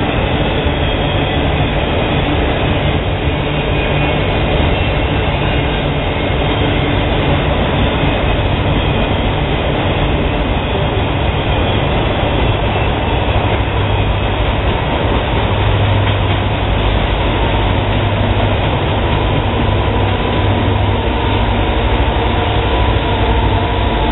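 Freight cars of a long manifest train rolling past with a steady, loud rumble of wheels on rail. In the last several seconds a low diesel engine hum builds as the EMD SD40E rear-end helper locomotives come up.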